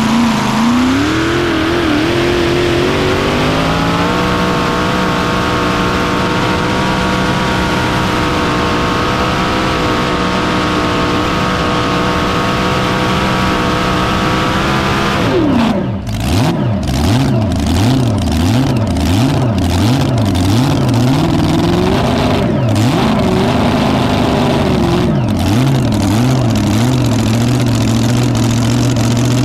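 Modified mini rod pulling tractor's engine, heard from the driver's seat, running at full throttle: its pitch climbs over the first few seconds and then holds high and steady. About halfway through it is cut back sharply and falls, is blipped up and down repeatedly at about two a second, and near the end settles to a steady idle.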